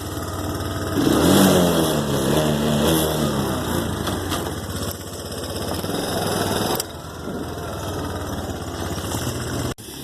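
Small off-road vehicle engine revving up about a second in and accelerating, its pitch rising and falling, then running on more steadily with a sudden drop in level a few seconds before the end.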